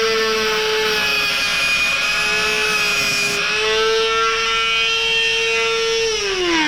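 Dremel rotary tool with a cutting wheel running at high speed with a steady whine. About six seconds in it is switched off and its pitch starts to fall as it spins down.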